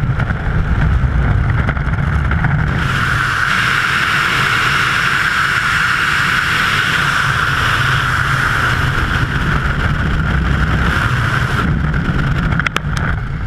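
Skydiving freefall wind rushing over a camera microphone, loud and steady, with a whistling tone through the middle. Near the end the hiss thins and a few sharp clicks come with a brief dip in level as the parachute is deployed.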